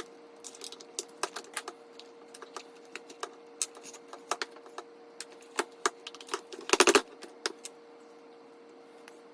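Irregular light clicks and taps of small hard objects being handled, with a louder rattling cluster about seven seconds in, then stopping; a faint steady hum underneath.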